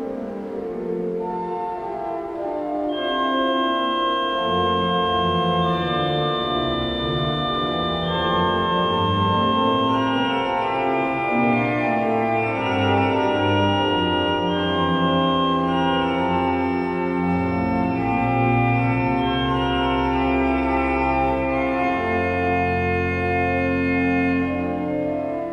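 Church organ playing slow, sustained chords in a classical recital piece, with low bass notes coming in about four seconds in.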